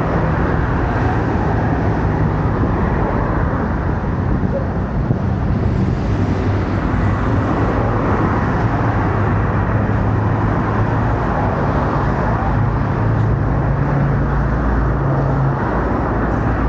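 Steady road traffic: motorcycles and cars passing on a city bridge. A low engine hum swells and fades in the second half.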